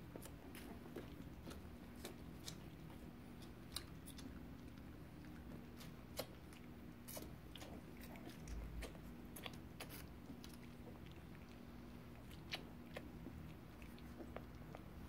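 Faint scattered clicks and small smacking sounds of three-week-old puppies stirring and mouthing each other as they settle to sleep, over a steady low hum.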